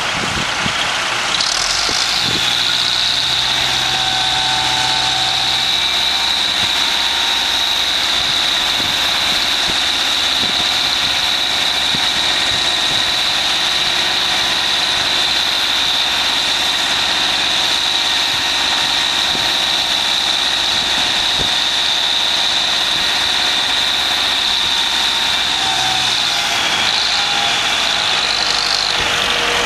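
Massey Ferguson 165 tractor engine running while its hydraulics raise a loaded tipping trailer. A steady high whine comes in about a second and a half in, holds while the body rises, and stops near the end.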